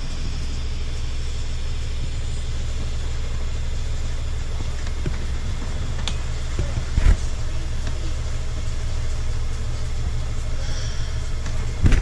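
Steady low machinery drone aboard a sailboat, with a short knock about seven seconds in and another near the end.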